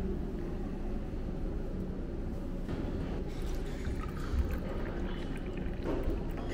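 Tea poured from a pot into a small ceramic cup, the stream of liquid splashing as the cup fills, over a steady low rumble.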